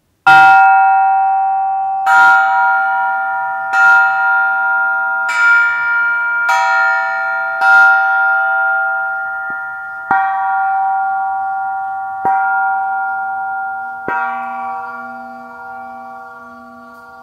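Small hand-hammered metal gong, hung from a cord and struck about nine times with a wooden stick. The first strike is the loudest and each ring carries into the next; after the last strike, a little past halfway through, the ringing slowly fades.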